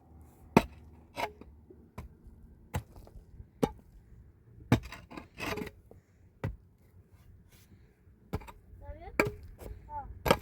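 Sharp, irregular knocks and clicks, roughly one a second, with faint rubbing and scraping between them, as of something being cut or worked by hand. A short voice-like sound comes near the end.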